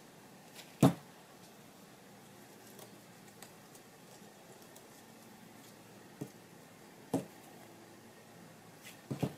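A few short knocks and taps of craft supplies being handled on a work table, the loudest about a second in and two more close together near the end, over quiet room tone.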